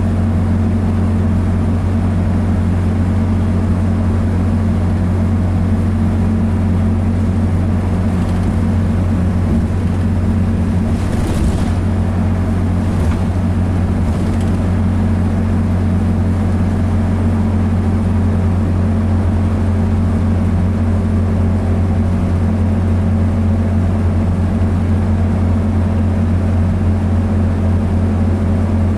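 Dennis Dart bus engine running at steady revs, heard from inside the passenger saloon as a constant low drone with no change in pitch. A few brief knocks come through about halfway through.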